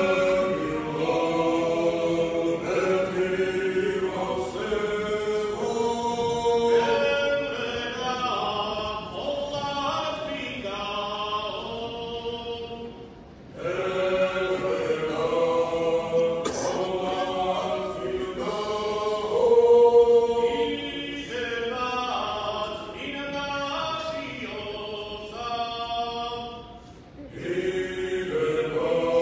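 Male folk ensemble singing a Meskhetian round-dance song (perkhuli) a cappella, several voices together in Georgian polyphonic style. The song goes in long phrases with two brief pauses, about a third of the way in and near the end.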